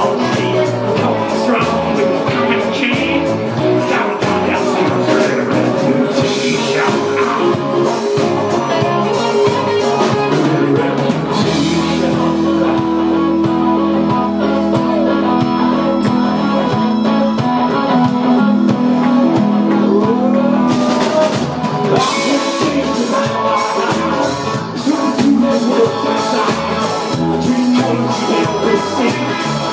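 Live country-rock band playing a song: drum kit, electric guitars and singing. Midway the drums and cymbals drop out for about ten seconds, leaving long held notes, before the full band comes back in.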